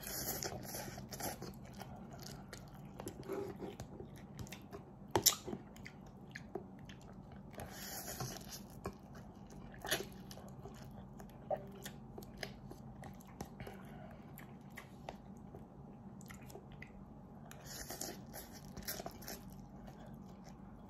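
A person eating instant noodles with a fork: slurping noodles into the mouth in three spells, at the start, about eight seconds in and near the end, with quiet chewing in between. A few sharp clicks sound along the way.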